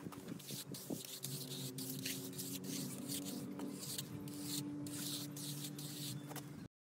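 Steel trowel sweeping over a wet cement floor screed, a repeated rasping scrape with each stroke, over a steady low hum. The sound cuts off abruptly just before the end.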